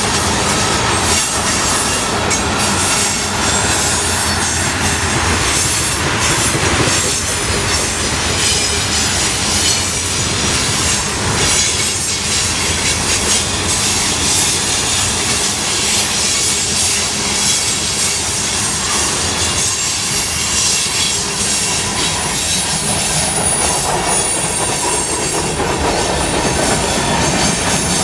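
Freight train of tank cars rolling past at close range: a loud, steady rattle of steel wheels on rail, with repeated clacks as the wheels cross rail joints.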